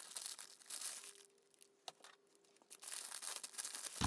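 Faint crinkling and rustling of a clear plastic bag being handled and opened. The rustling pauses in the middle, where one short sharp click is heard, and picks up again near the end.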